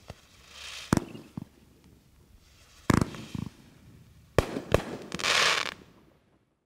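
A 500-gram, 20-shot consumer firework cake firing its last shots: a series of sharp bangs as the shells burst, with stretches of hissing, crackling glitter between them, the loudest and longest crackle about five seconds in.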